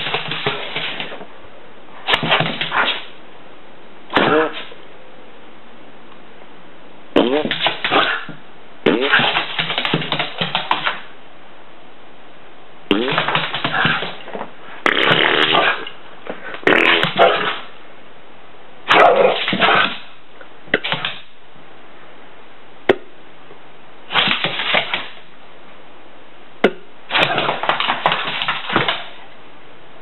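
Fart-like raspberry noises blown through the lips, about a dozen bursts of a second or so each with short pauses between them.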